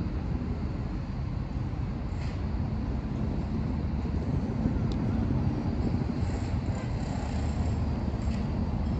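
Diesel engines of harbour tugboats running, a steady low rumble.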